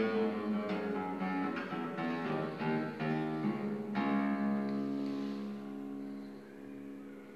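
Solo classical guitar playing a passage of quick plucked notes, then a chord struck about four seconds in that is left to ring and slowly die away.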